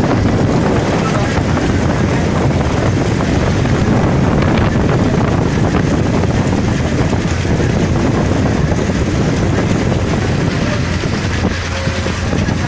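Motorboat engine running steadily while the boat moves along the water, with wind buffeting the microphone.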